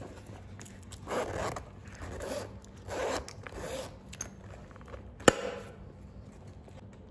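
Zipper on a leather waist bag being pulled along its track in a few short pulls, then a single sharp click about five seconds in.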